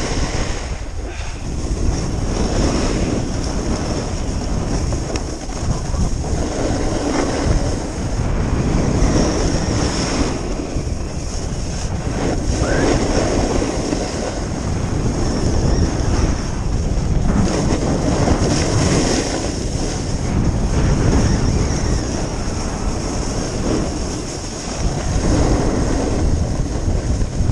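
Wind rushing over the microphone of a skier's body-mounted camera, with skis scraping across firm, tracked-up groomed snow, the rush rising and falling every few seconds.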